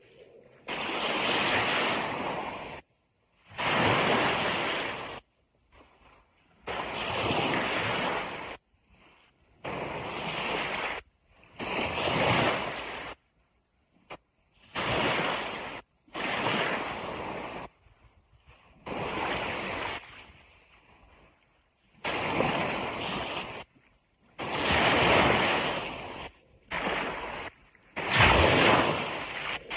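Ocean surf noise broken into about a dozen bursts of one to two seconds each. Each burst starts and stops abruptly, with near-silent gaps between.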